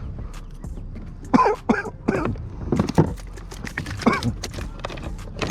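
A person's short, wordless vocal sounds, about five of them between one and four seconds in, over a steady low rumble of wind on the microphone.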